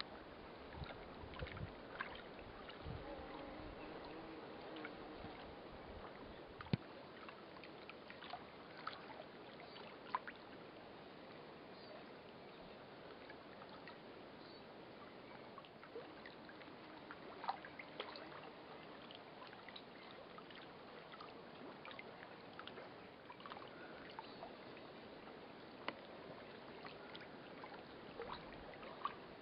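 Faint lapping of small waves on open water, with scattered light clicks and ticks. A low rumble in the first seven seconds stops at a sharp click.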